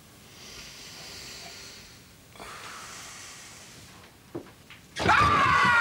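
Slow, deep breaths, one long in-breath and one long out-breath, then near the end a sudden burst of loud laughter.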